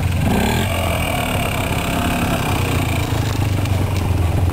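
Trials motorcycle engine running steadily at low revs as the bike picks its way slowly along a dirt section.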